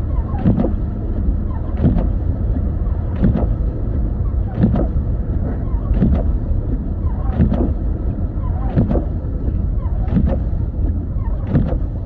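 Windshield wipers sweeping a snowy windshield in a steady rhythm, one stroke about every second and a half, over the steady low rumble of the car driving on a snow-covered road, heard from inside the cabin.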